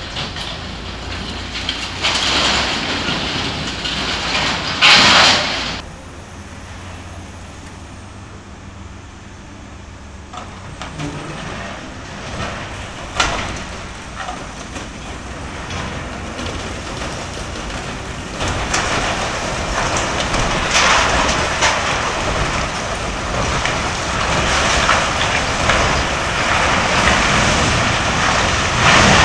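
Steel roof trusses and corrugated sheet metal crashing and grinding as a CAT excavator's demolition grapple tears a warehouse down, over the excavator's engine running. A loud crash comes about five seconds in, a sharp clang near the middle, and a long stretch of continuous crashing in the second half.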